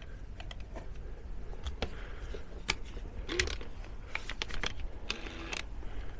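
Irregular light metallic clicks and clinks of hand tools against the nut and bolt of the rear shock-absorber mount, as the tool is worked and repositioned.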